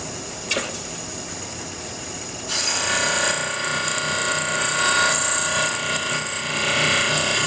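Bench grinder wheel spinning with only a steady hum. About two and a half seconds in, a mild steel blank is pressed against it and a loud, steady grinding hiss begins and runs on. The flank of a lathe threading tool is being ground further to make its point sharper.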